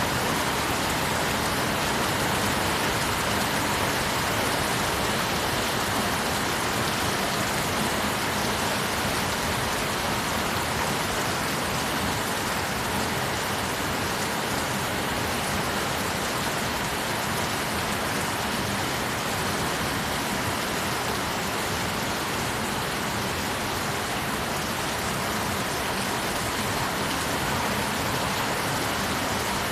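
Steady, heavy rain falling, an even hiss of water with no letup.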